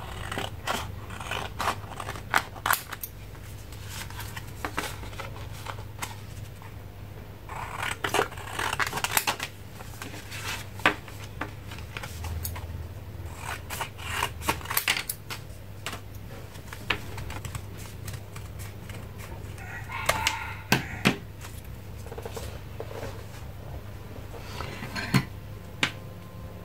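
Scissors snipping through folded sheets of coloured paper, in several short runs of crisp cuts with pauses between them.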